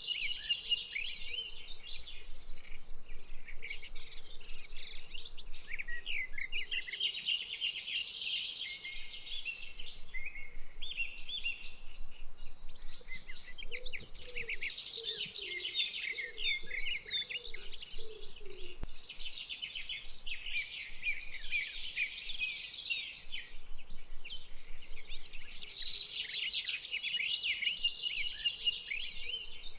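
A chorus of songbirds chirping and singing over one another, a dense, continuous twittering. The birdsong swells and thins in waves every few seconds.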